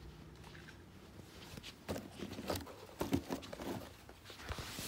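Handling noise: a quick, irregular run of light knocks and rubs as the cycling shoes are handled and turned over on a cardboard box, starting about two seconds in, with a short rustle near the end.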